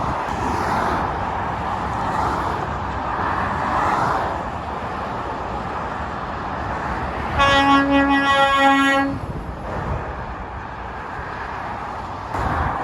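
Motorway traffic passing with a steady rush of tyres and engines. About seven seconds in, a truck's air horn sounds a single note in two quick blasts, together under two seconds long.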